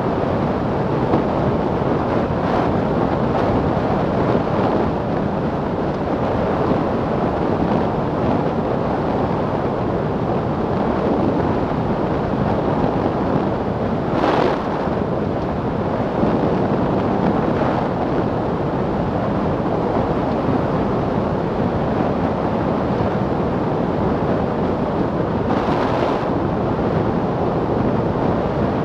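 Steady rush of wind over the microphone, mixed with tyre noise on the tarmac, from an open-top Milan Mk4 velomobile travelling at about 75 km/h. There are two brief louder whooshes, one about halfway through and one a few seconds before the end.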